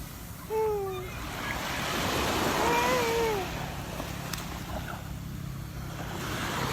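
Sea surf washing steadily on the shore, with a high young child's voice calling out briefly twice, about half a second in and about three seconds in.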